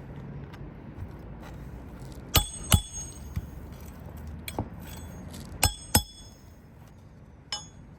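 Roof snake being worked on asphalt shingles to pull nails: sharp metallic clanks with a brief ring, in two quick pairs a few seconds apart, with a few lighter knocks between.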